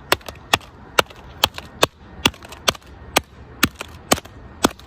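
An iPhone 7 being struck hard over and over, about two sharp blows a second in an even rhythm, with fainter clicks between them.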